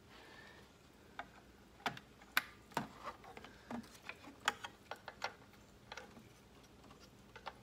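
Light, irregular clicks and taps of plastic parts being handled: a Tahoe headlight housing and its bulb wiring connectors being fitted, about a dozen sharp ticks spread unevenly over several seconds.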